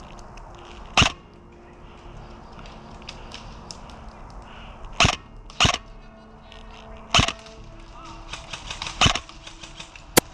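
Airsoft gun firing single shots, about six sharp cracks spaced irregularly a second or more apart, with fainter ticks of distant airsoft fire in between.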